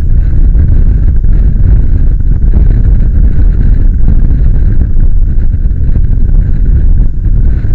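Wind buffeting the microphone of a camera mounted on a moving motorcycle: a loud, steady low rumble.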